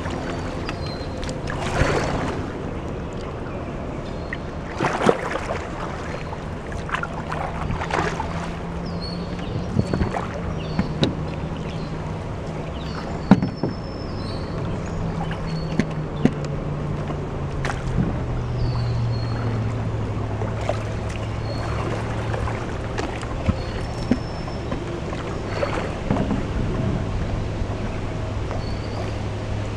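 Canoe paddle strokes through flood water, with a dozen or so sharp knocks and splashes at irregular intervals. A steady low hum runs underneath and drops a little in pitch partway through.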